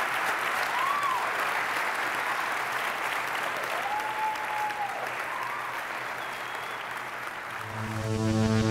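Studio audience applauding, with a couple of brief cheers from the crowd. The applause fades and steady electronic music comes in near the end.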